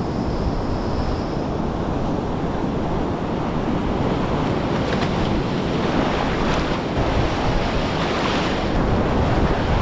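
Ocean surf breaking and washing, with heavy wind buffeting the microphone.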